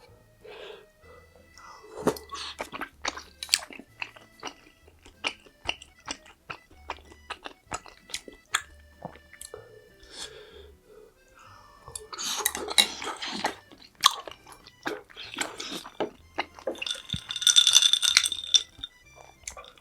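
Close-miked chewing of crisp fried food, many sharp crunches with two louder, denser stretches of crunching about twelve and seventeen seconds in. Soft background music with a steady beat plays underneath.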